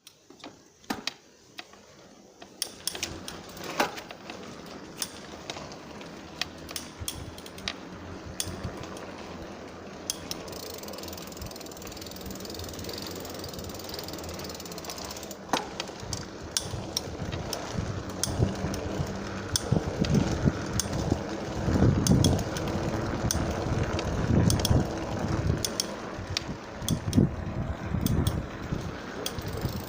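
Lankeleisi MG600 Plus electric bike's crankset clicking irregularly under pedalling, with a louder rumbling noise building from about halfway. The abnormal noise is mechanical, present with the motor off, and traced to dry crank and pedal bearings that needed lubricant.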